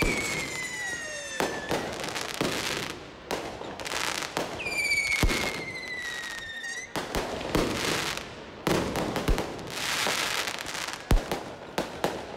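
Aerial fireworks bursting in the sky: repeated bangs and crackling. Two long whistles slide slowly down in pitch, one at the start and one about four and a half seconds in. A sharp, loudest bang comes about eleven seconds in.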